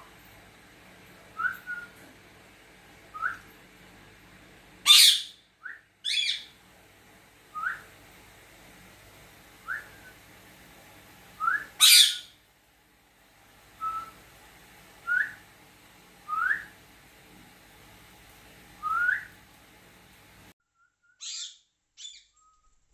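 Short rising whistled notes repeated every second or two, with a parrot's loud, shrill calls twice, about five and twelve seconds in.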